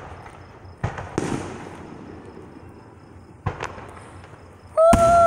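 Aerial fireworks going off at a distance: several sharp bangs, one followed by a short hiss. Near the end a loud, steady, shrill tone starts and takes over.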